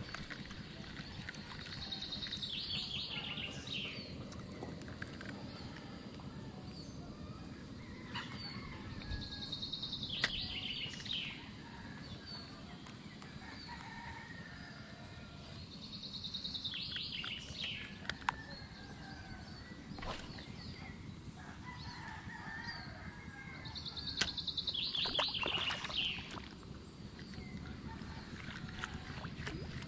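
A bird calling four times, about every seven seconds: each call a quick, high, rattling phrase that falls in pitch, over a low steady background rush.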